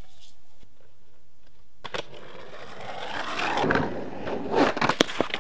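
Skateboard wheels rolling down a steep, rough concrete bank, the rolling noise growing louder as the board picks up speed, then several sharp cracks and knocks near the end.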